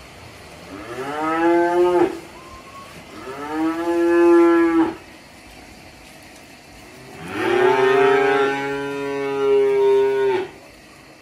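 Young cattle calves mooing three times, each call rising in pitch as it starts, the third the longest at about three seconds.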